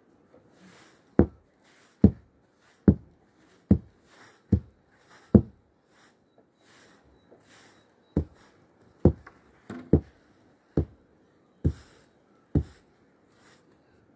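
Wooden mallet pounding a heap of grain on a tarp laid on the ground: dull thuds about one a second, six strokes, a pause of a couple of seconds, then six more.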